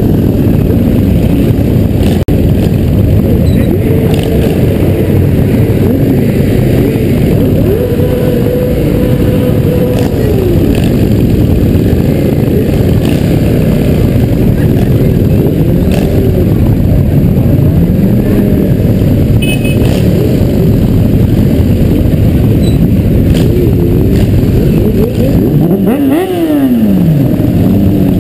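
Motorcycle engines in a slow parade, heard from a helmet camera on one of the bikes: a dense low engine rumble whose pitch rises and falls again and again as throttles open and close, with one clear rev up and back down near the end.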